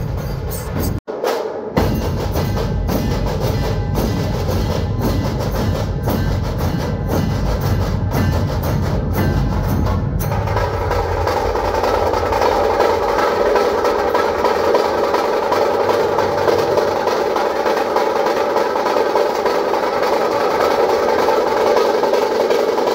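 Dhol-tasha ensemble drumming: a row of large dhol barrel drums beaten with sticks, with tasha snare drums rattling over them in a fast, loud rhythm. There is a brief dropout about a second in. About ten seconds in, the deep boom of the dhols falls away and the sound turns into a thinner, mid-pitched din.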